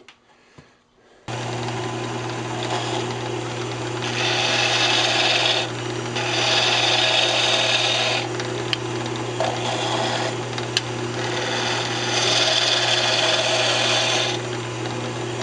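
Wood lathe switched on about a second in and running with a steady hum. Over it, a turning tool cuts the spinning walnut spindle in four passes of one to two and a half seconds each, bringing the narrow centre down to size.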